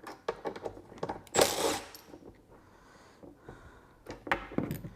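Workshop handling noises of hand tools and pit-bike parts: scattered small clicks and knocks, with two short scraping, rustling bursts, one about a second and a half in and one just after four seconds.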